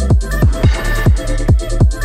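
Electronic background music with a steady beat of deep kick drums that drop in pitch, under held synth chords.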